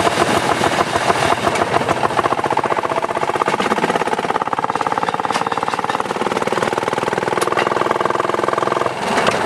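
Small engine of a rail section car (speeder) running under way along narrow-gauge track, with a fast, even firing pulse. Its pitch shifts a few times, and it dips briefly near the end.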